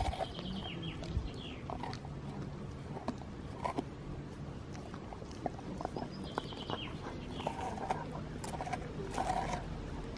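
Dog gnawing and licking a frozen dog-ice treat close to the microphone: irregular crunching and smacking clicks.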